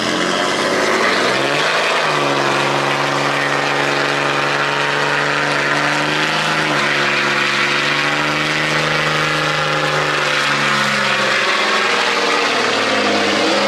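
Lifted diesel pickup doing a burnout: the engine revs up over the first two seconds and is held at high revs while the rear tyres spin, a loud steady engine note over the hiss of the spinning tyres.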